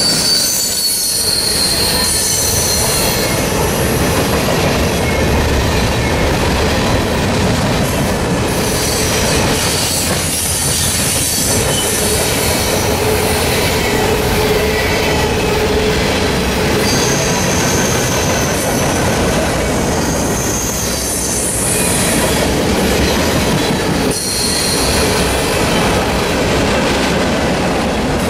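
CSX freight train's cars, mostly covered hoppers, rolling past at speed: a loud, steady rumble and clatter of steel wheels on rail. Brief high-pitched wheel squeals come and go several times.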